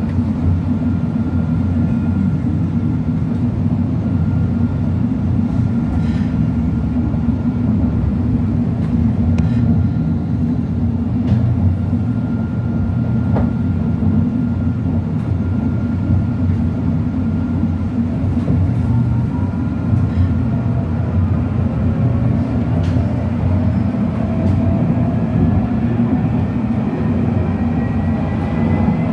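Electric tram heard from inside, running on its rails: a steady low rumble with a faint steady whine and a few light clicks. In the last third, rising whines come in as the traction motors pick up speed.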